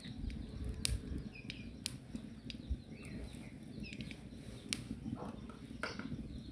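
Quiet background with a low steady rumble, a few sharp clicks and faint short chirps of birds.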